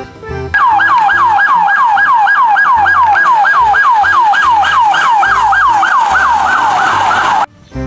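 Police car's electronic siren in a fast yelp, its pitch sweeping over and over about three and a half times a second. It cuts off suddenly near the end.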